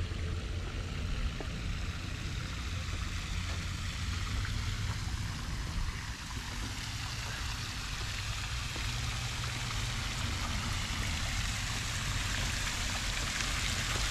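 Fountain jets splashing into a stone basin, a steady hiss of falling water that grows louder toward the end.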